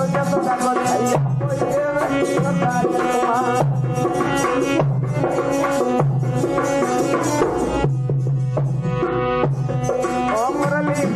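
Instrumental Indian folk music: a melody line over a steady beat of tabla-like hand drum and rattle-type percussion.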